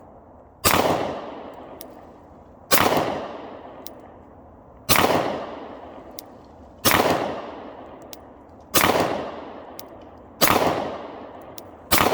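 Glock pistol fired seven times in slow, aimed succession, about two seconds apart. Each shot is a sharp crack followed by a long echo that fades away, with faint ticks between some of the shots.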